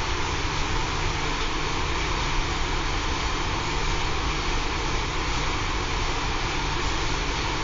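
Wood-stove heating system running, with the Laddomat 21 charging unit's circulation pump in operation: a steady drone with a low hum and even hiss that does not change.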